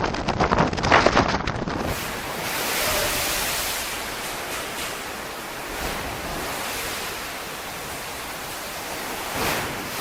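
Storm wind and heavy sea: gusts buffet the microphone for the first two seconds, then a steady rush of wind and waves swells and eases slowly.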